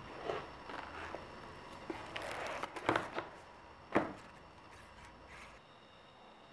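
Household handling sounds: a few soft scrapes and clicks of objects being moved, with the sharpest click about four seconds in.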